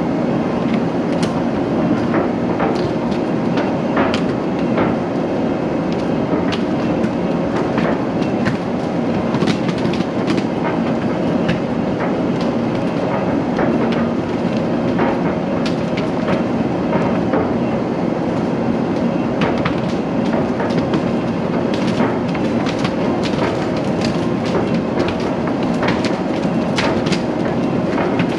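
Heavy wheeled logging machine's diesel engine running steadily as it drives along a woods trail, with irregular sharp clicks and clanks from the machine rattling and brush under the tyres.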